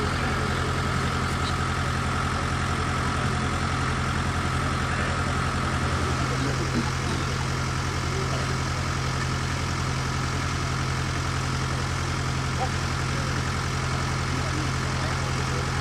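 A vehicle engine idling steadily, a low even rumble that holds unchanged throughout.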